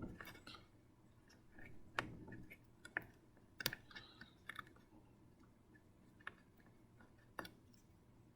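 Faint, scattered clicks and taps of a microcontroller board's header pins being pressed into a plastic breadboard.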